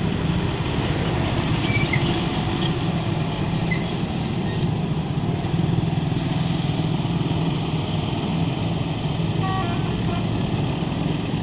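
Diesel tractor engines running steadily under load as tractors pull heavily loaded sugarcane trolleys along the road. A blue Ford 4600 comes past close by near the end.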